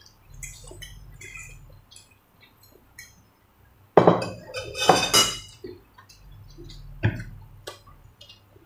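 Forks and spoons clinking and scraping against plates and a metal bowl as noodles are eaten, with small ticks throughout. Two louder, noisy sounds come about four and five seconds in.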